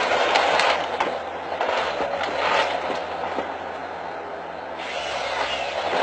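Forestry harvester at work, its head feeding a felled trunk through its rollers while the delimbing knives strip off branches: a noisy mechanical clatter with many sharp cracks, easing off in the middle and louder again near the end.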